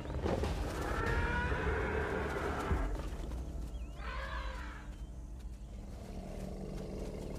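An African elephant trumpets loudly for about two and a half seconds, then gives a second, shorter trumpet about four seconds in.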